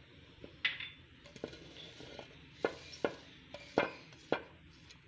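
About six scattered knocks and clinks of ceramic crockery being handled: small bowls and a plate knocking against each other or the counter.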